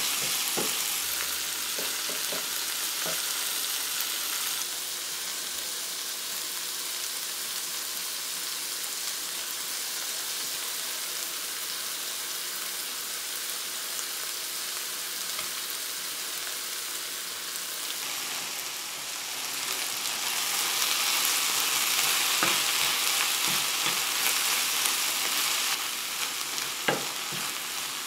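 Cherry tomatoes, onion and spinach sizzling in oil in a frying pan, with a wooden spatula knocking and scraping against the pan a few times near the start and near the end. The sizzle swells for several seconds in the last third.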